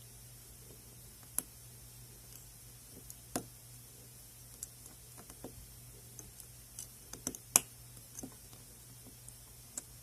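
Lock pick and tension wrench working the pins of a Saker 65 mm padlock: irregular small metallic clicks and ticks, the sharpest about three-quarters of the way through. The lock's pins have been modified with serrations, which gives more clicks as they are picked.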